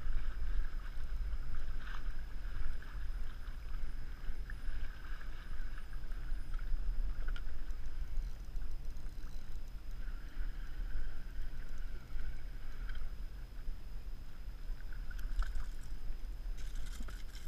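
Water slapping and sloshing against the hull of a sit-on-top fishing kayak, under a steady low rumble of wind on the microphone, while a fish is played on a spinning rod.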